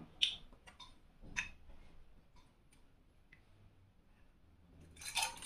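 Light clicks and knocks as a glass bottle of blue curaçao is picked up and handled, then a faint pour into a steel jigger over a stainless cocktail shaker, with a short louder burst of noise about five seconds in.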